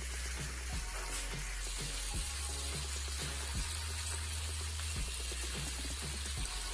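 Water boiling hard in a pan with herbs and spices for a kashayam decoction, a steady bubbling hiss.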